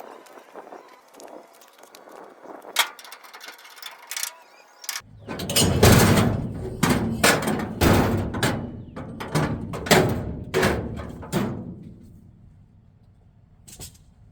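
A run of irregular knocks and thuds over a low rumble, starting suddenly about five seconds in and dying away near twelve seconds, after a few faint clicks.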